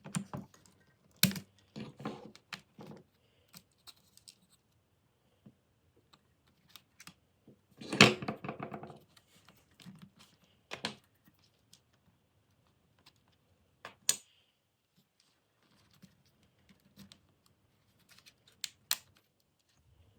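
Plastic keycaps on an Amiga keyboard being worked on and off their key switches: scattered sharp clicks and taps, with a louder clatter lasting about a second roughly eight seconds in.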